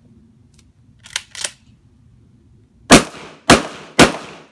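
Shotgun fired three times in quick succession, about half a second apart, each shot trailing off in an echo. About a second earlier come two short, much fainter clacks.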